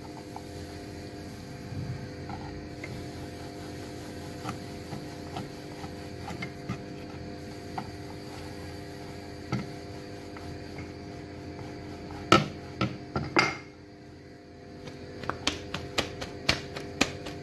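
Paratha dough being rolled out on a wooden rolling board, with faint scattered ticks, three sharp knocks about two-thirds of the way in and a quick run of clicks near the end, as the rolling pin and board knock. A steady hum runs underneath.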